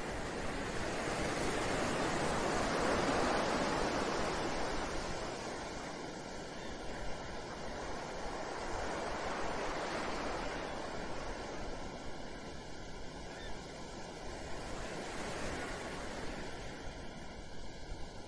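Ocean surf: waves washing in as a steady rushing noise that swells and recedes. It is loudest a few seconds in and swells again about every six seconds.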